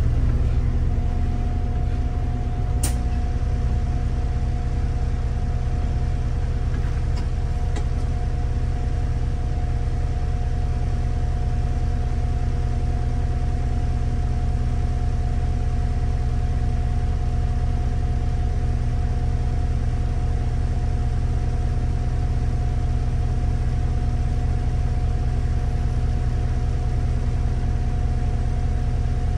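City bus running with a steady low hum and a faint constant whine over it, unchanging throughout. A single sharp click about three seconds in.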